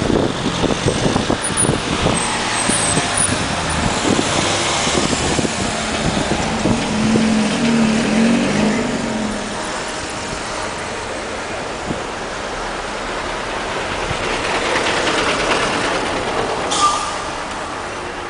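Car driving in town traffic, heard from inside with the window open: steady road and engine noise, wind buffeting the microphone in the first few seconds, and other vehicles passing. A brief sharp hiss comes near the end.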